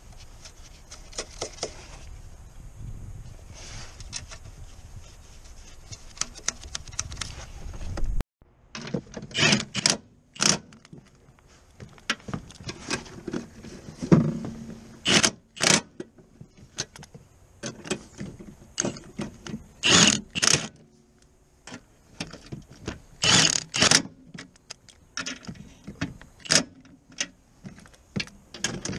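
Hand tools working on metal fasteners in a car's engine bay: light metallic clicks and scrapes over a low rumble. After a sudden cut about eight seconds in, there are short bursts of clicking, often in pairs about a second apart, as a hand ratchet is swung back and forth.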